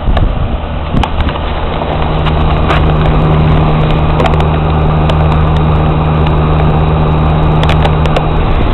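A machine running with a steady low hum; a stronger hum sets in about two seconds in and stops near the end, with scattered light clicks over it.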